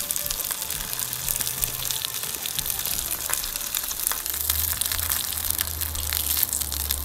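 Hot oil sizzling and crackling in a frying pan where fish is frying, with a low steady hum coming in about four seconds in.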